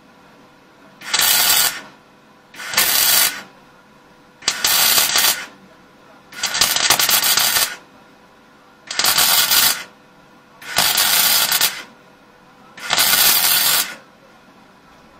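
Semi-automatic MIG welder feeding 1 mm copper-coated SV-08G2S wire, crackling and sputtering in seven short welds of about a second each with brief pauses between, stitch-welding a steel angle.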